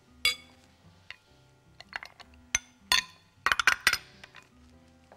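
A spoon clinking against a bowl in a series of irregular sharp clinks, with a quick cluster of them a little past halfway, as diced tomatoes are spooned into the crumbled cheese.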